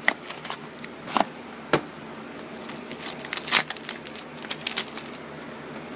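Hockey card pack being opened and its cards handled: scattered crinkles, crackles and clicks of wrapper and card stock, busiest about halfway through.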